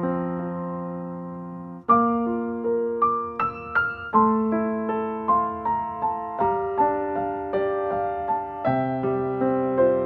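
Background music: a slow, gentle piano piece, a held chord followed by single notes struck one after another and left to fade.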